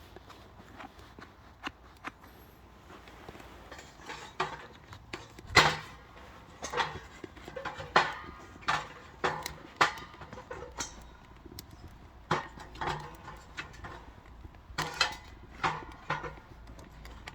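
Irregular knocks and clatters of wood against metal at a small steel wood stove as oak logs are handled into it, one or two a second at their busiest, the loudest a little over five seconds in.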